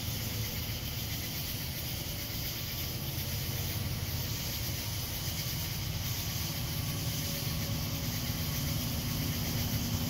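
Cicada chorus as a steady, even hiss, over a steady low rumble.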